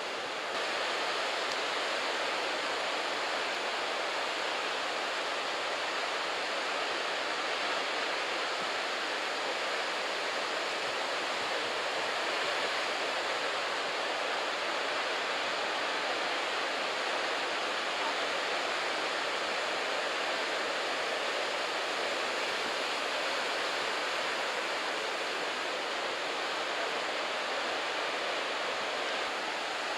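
Steady rushing roar of head-high typhoon surf breaking along a beach, a continuous noise without separate crashes.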